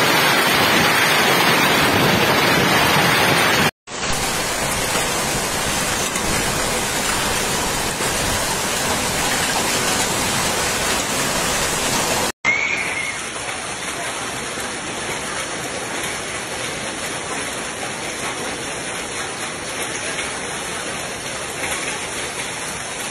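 A hailstorm: heavy rain mixed with hailstones pelting pavement and roofs, a dense, steady hiss of impacts. It comes in three takes split by brief dropouts about 4 and 12 seconds in, and the last take is quieter.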